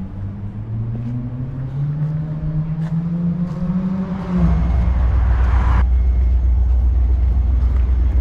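A motor vehicle's engine speeding up, its pitch slowly rising, then giving way about four seconds in to a loud, steady low rumble.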